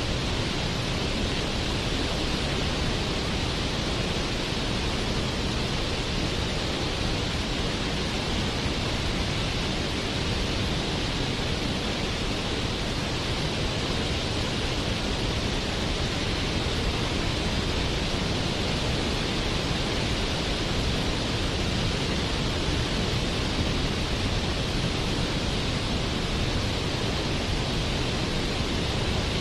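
Waterfall with water falling and rushing in a steady, unbroken hiss, with no change in level or pitch.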